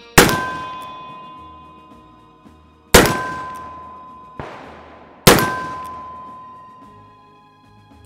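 Four shots from a Pietta 1860 .44 caliber black-powder snub-nose revolver, about two and a half seconds apart. Each is followed by the ringing clang of a hit steel target, fading over a second or two.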